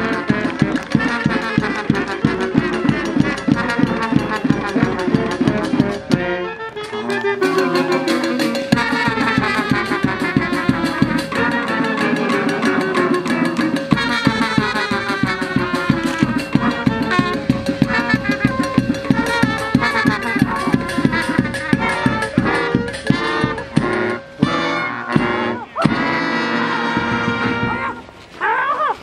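Live brass band playing a lively tune, trumpets and trombones over a steady beat.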